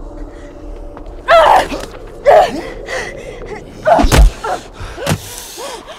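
Movie fight sounds: two loud yells about a second apart, then a heavy punch thud about four seconds in and a sharper hit a second later, followed by short gasping breaths.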